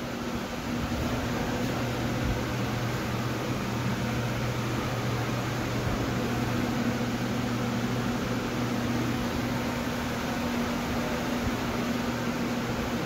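Steady whir of a running electric motor, with a low hum that fades out about halfway through.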